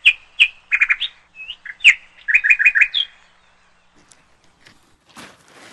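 A songbird chirping: single sharp chirps and quick runs of four or five notes, ending with a higher rising note about three seconds in. Near the end, a brief scuff.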